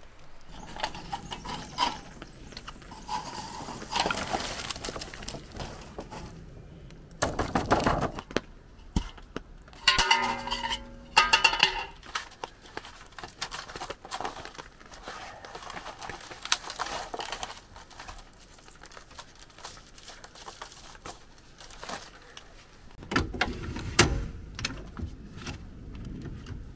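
Camp gear and teardrop-trailer galley kit being packed away: a run of clinks, knocks and rattles of dishes and metal hardware. There are louder bouts of clatter about seven seconds in and again near the end, and a brief pitched sound about ten seconds in.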